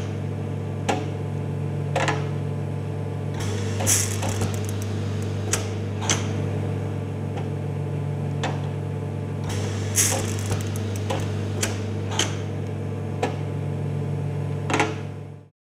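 TC-1 jacquard loom running: a steady low hum with irregular sharp mechanical clicks and clacks roughly once a second, louder ones about four and ten seconds in. It cuts off suddenly just before the end.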